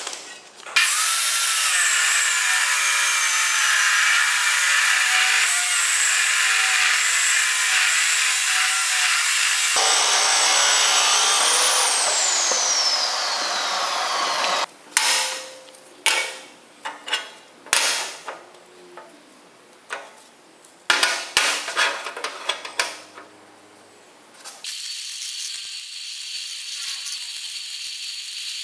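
A power tool cutting or grinding metal runs steadily for about fourteen seconds, its pitch wavering and then dropping away. It then runs in a string of short bursts, and a quieter steady hum follows near the end.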